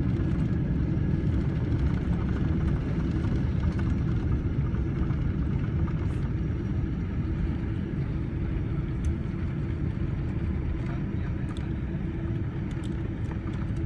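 Boeing 777-300 airliner on its landing rollout heard from inside the cabin: a steady low roar of the engines and wheels on the runway, easing slightly near the end as the jet slows.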